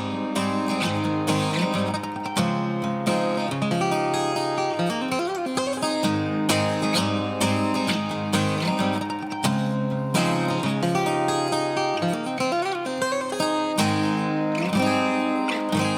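Background music: a strummed acoustic guitar tune with a steady beat.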